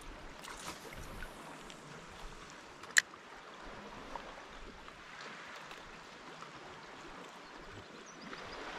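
Gentle water lapping and trickling around a sit-on-top fishing kayak on calm sea. One sharp click sounds about three seconds in.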